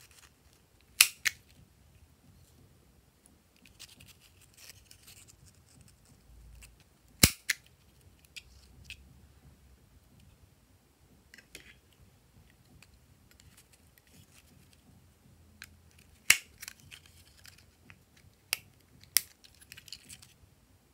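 Handheld plastic craft paper punches snapping shut as they cut small shapes from glitter paper: several sharp clicks a few seconds apart, some in quick pairs, with soft rustling of the paper between them.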